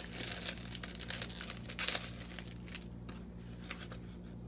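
Thin clear plastic sleeve crinkling as a notepad is pulled out of it. The crinkling is loudest in the first two seconds, then thins to faint rustles.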